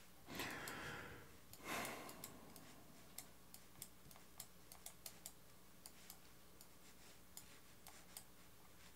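Faint, irregular clicking of a computer mouse and keyboard during photo editing, with two short, soft whooshes of noise in the first two seconds.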